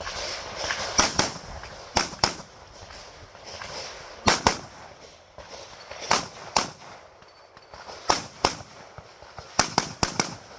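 9mm Glock 45 pistol firing in quick pairs, with one- to two-second gaps between pairs and a faster run of several shots near the end: double taps on each target.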